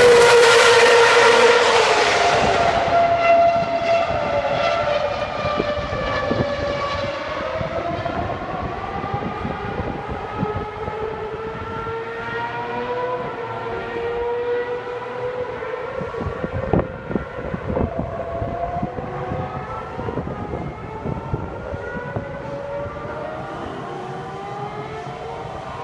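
Ferrari Formula 1 car's engine at full throttle passing, its high note dropping in pitch as it draws away and fades. It carries on as a distant whine from around the circuit, climbing in pitch and stepping back down at each gear change.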